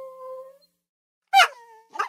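Pomeranian dog vocalising: a drawn-out whine tails off about half a second in. After a short pause comes a sharp yip that runs into a brief high whine, and another short yip follows near the end.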